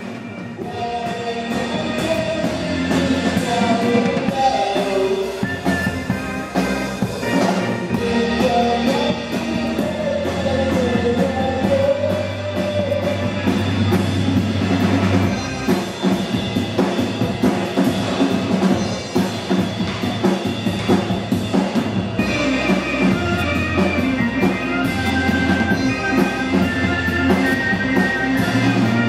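Rock music with a full drum kit and a stepping bass line, playing steadily.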